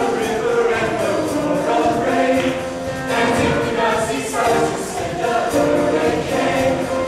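Mixed-voice show choir singing in full chorus, many voices holding and moving between sustained notes.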